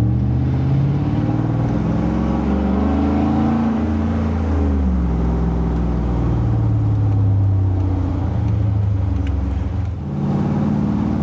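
The Jeep Wrangler's V8 engine and exhaust running while driving, heard from inside the cab with open tube doors. The engine note rises and then falls over the first few seconds, then holds steady at cruising speed.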